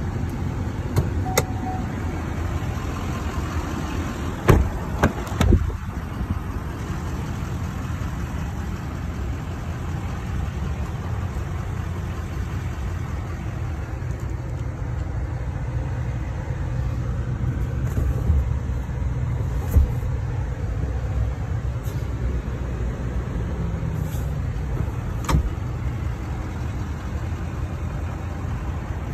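2016 Chevy 2500HD pickup's engine idling steadily, a low rumble, with a few sharp clicks and knocks scattered through it.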